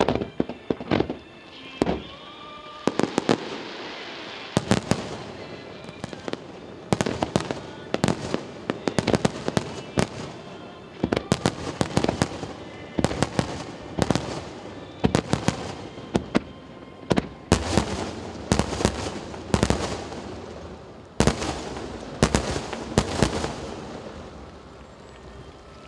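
Fireworks display: aerial shells bursting in quick succession, many sharp bangs with crackling between them, dying away near the end.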